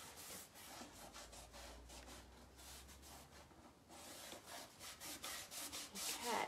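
Cloth rag rubbed back and forth over a waxed, painted wooden drawer: a soft scrubbing in quick repeated strokes, a few a second.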